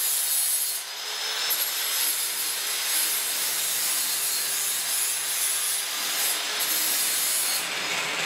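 Handheld angle grinder grinding the edge of a small plasma-cut steel sheet piece, a steady abrasive grinding hiss. It is knocking off the slag left by plasma cutting and smoothing the edge.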